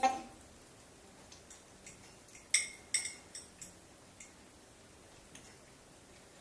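Metal fork clinking and scraping against a ceramic plate while picking up salad, with a short run of sharp clinks about halfway through.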